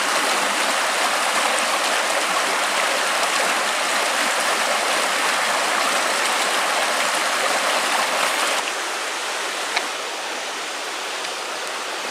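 Water of a rocky mountain trout stream rushing over stones in a riffle, a steady rush of noise. It drops a little quieter about eight and a half seconds in, where the flow is a calmer run.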